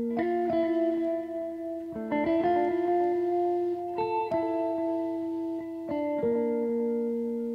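Background music: a slow, clean melodic pattern whose notes change together about every two seconds.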